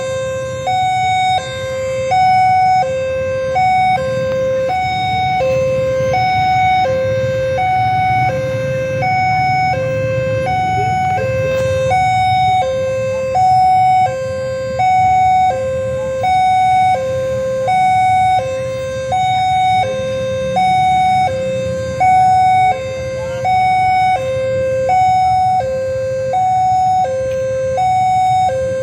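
Railway level-crossing warning alarm sounding continuously in a two-tone pattern, alternating high and low about once every second and a half: the crossing is closed for an approaching train. A low steady rumble runs beneath it.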